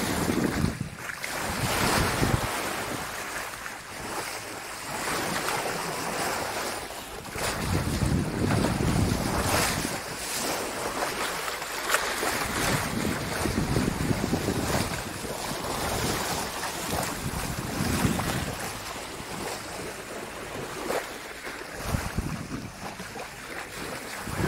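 Water rushing and splashing along the hull of a moving boat, with wind buffeting the microphone in gusts that swell and fade every few seconds.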